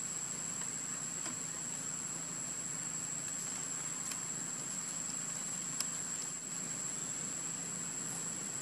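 Steady forest background noise: a constant high-pitched insect drone over a low hum, with a few faint ticks.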